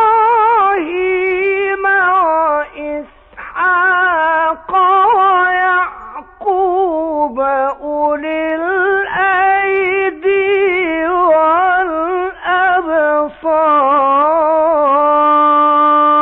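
A male Quran reciter chants in the melodic mujawwad style: long, ornamented phrases broken by short pauses for breath, ending on a long held note. It comes from an old radio broadcast recording with no high treble.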